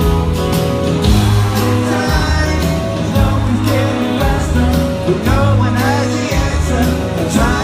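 Rock band playing live with a steady beat, guitars and a singing voice, heard as a loud concert recording.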